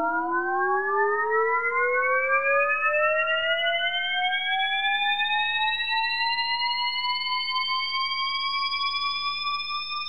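Synthesized sci-fi spaceship takeoff sound effect: a single whine with several overtones rising steadily in pitch, climbing ever more slowly, over a faint low hum, and starting to fade near the end.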